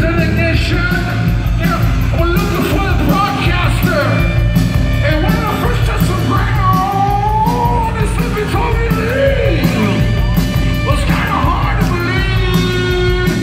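Live rock band playing loud electric guitars, bass and drums, with a shouted, sung lead vocal over them, heard from the audience.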